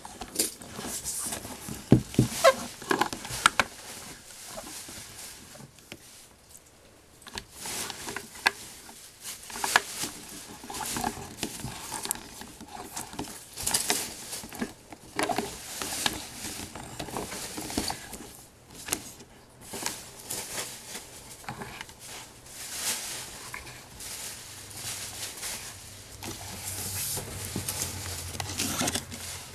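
Handling noise: cotton-gloved hands rubbing and shifting an antique doll's jointed body and limbs, with soft rustling and irregular light knocks and clicks, the sharpest knocks about two to three seconds in.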